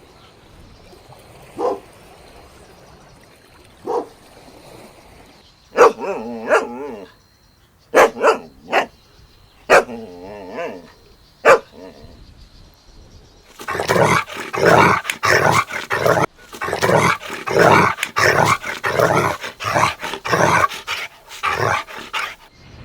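Dogs barking: scattered single barks with two wavering whines between them, then a long run of rapid, continuous barking through the second half.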